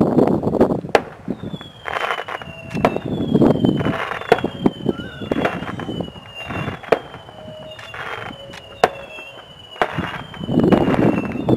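Fireworks going off in quick succession: whistling fireworks give a falling whistle about a second long, roughly one a second, mixed with sharp bangs and swells of crackling.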